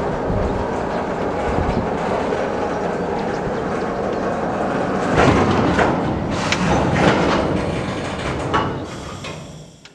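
Freight wagons on bogies rolling slowly along the track, their wheels rumbling and clattering on the rails, with several sharp metallic clanks in the second half. The sound fades out near the end.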